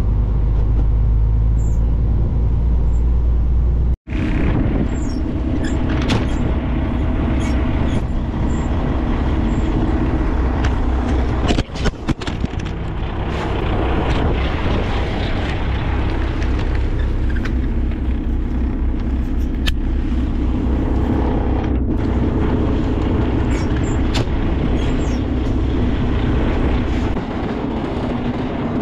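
A loaded tractor-trailer's engine runs under way with steady road noise and a low rumble. The sound cuts out for an instant about four seconds in and breaks up briefly around twelve seconds in.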